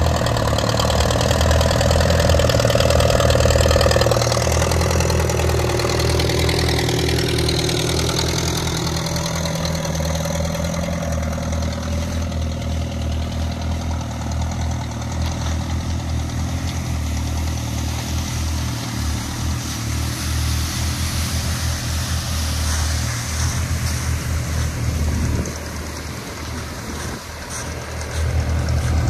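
Engine of a vintage Ford N-series half-track tractor running steadily while it drags a hitch of logs, pulling well under the load. The engine sound dips for a few seconds near the end as the tractor moves away, then comes back up.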